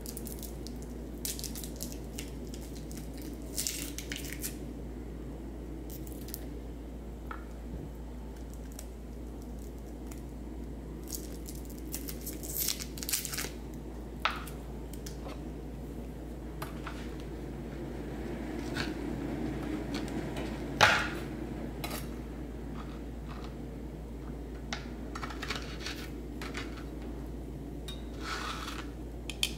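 Scattered clinks and scrapes of a metal spoon working in a small wooden bowl, with one sharper knock about 21 seconds in, over a steady low hum.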